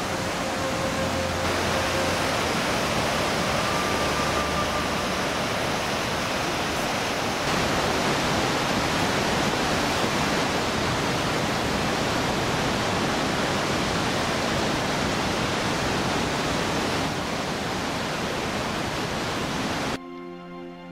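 Steady roar of rushing river water in rapids, an even hiss with no separate events. It cuts off near the end as music begins.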